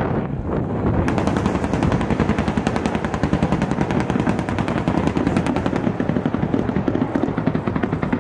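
AH-64 Apache attack helicopter firing its 30 mm chain gun in rapid fire over the sound of its rotor. The firing starts about a second in and runs for several seconds.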